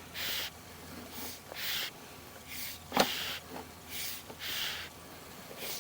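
A person breathing audibly close to the microphone, a hissy breath about once a second, with a single sharp click about three seconds in.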